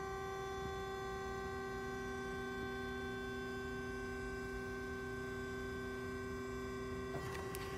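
The hydraulic pump of a Marvel vertical band saw humming steadily while the column is driven forward. A lower tone in the hum cuts out about seven seconds in, followed by a short click.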